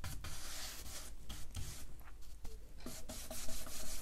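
Round wax brush scrubbing wax into a bare pine tabletop, rubbing with repeated strokes along the grain.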